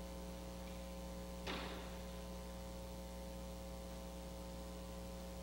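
Steady electrical mains hum, a low buzz with several even overtones, from the recording chain. A brief faint rustle or breath comes about one and a half seconds in.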